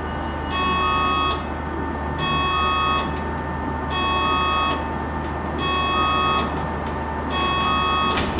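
Electronic alert chime in the cab of a Proterra Catalyst electric bus, a chord of steady tones sounding five times, each about a second long and evenly spaced, over a steady low hum. It sounds while the bus is drawn in and braked automatically at its charging station.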